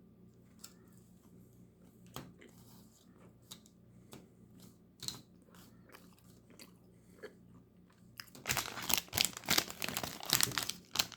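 Close-up chewing of a filled milk chocolate: scattered soft mouth clicks, then about eight seconds in, a few seconds of louder, dense crunching and crackling.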